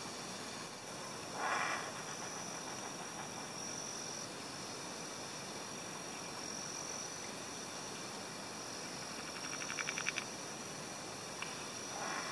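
Evening insect chorus, crickets or similar, chirping in a steady high-pitched band that swells and fades. A short burst of noise comes about a second and a half in, and a brief fast rattling call comes about ten seconds in.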